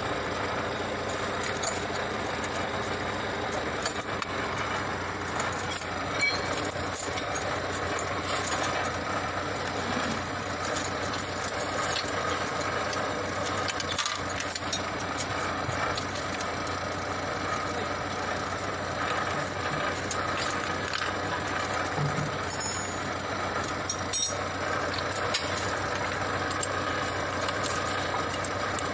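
Steady mechanical drone, like an engine idling in the background, with a few faint clicks.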